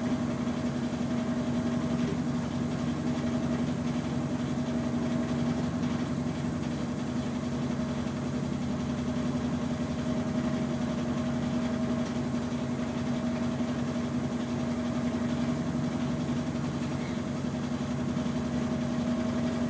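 Consul CWH15 washing machine in its spin cycle: the drum spinning at a steady speed with a constant motor hum and whir that does not change pitch.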